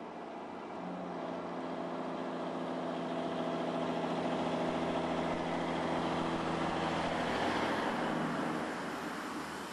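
A motor vehicle's engine running at a steady pitch, growing louder from about a second in and fading away near the end.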